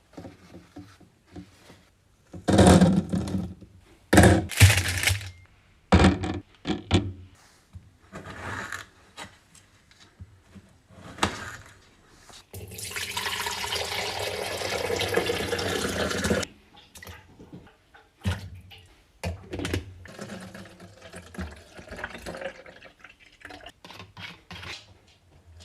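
Restocking a mini fridge: a series of knocks and clunks as drinks and snack containers are handled and set down. In the middle there are about four seconds of steady rushing noise.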